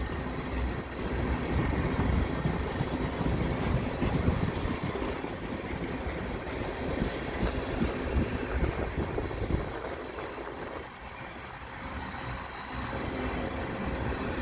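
Freight cars of a slow-moving CN mixed freight train rolling past: a steady rumble of steel wheels on rail with irregular clanks, briefly quieter about eleven seconds in.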